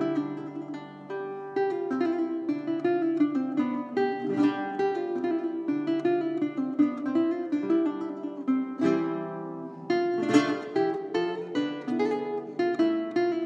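Five-course baroque guitar played solo: a plucked melody over bass notes, broken by a few full strummed chords, the loudest about ten seconds in.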